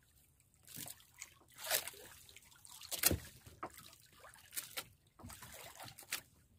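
Seawater splashing and trickling in short, irregular bursts at the side of a small outrigger boat, as a fishing handline is hauled in by hand over the gunwale.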